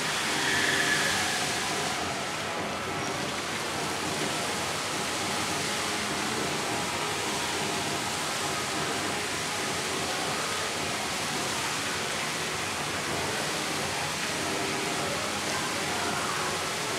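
Many water jets of a large fountain spraying up and splashing back into the pool, a steady rushing hiss like heavy rain.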